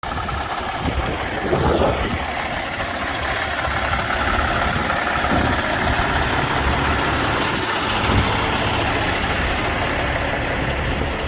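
Diesel engine idling steadily, a low rumble throughout, with a brief swell about one and a half seconds in.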